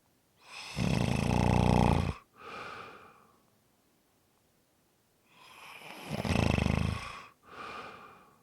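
Snoring, two breath cycles about five seconds apart: each is a long, loud, rough snore followed after a short break by a briefer, softer breath sound.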